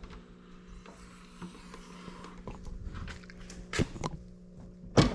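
Licence plate on a 2003 Smart rattling and clanking against its mount: a few light clicks, then two loud knocks, one near four seconds in and one right at the end. The new-style plate is held by only two screws, so it sits loose and clatters.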